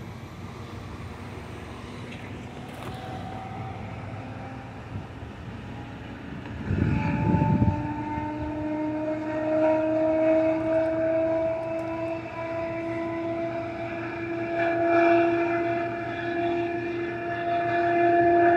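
Air horn of an approaching CN freight locomotive blowing a long, held chord of several notes, starting about a third of the way in and swelling and easing in loudness. A brief low rumble comes just as the horn begins.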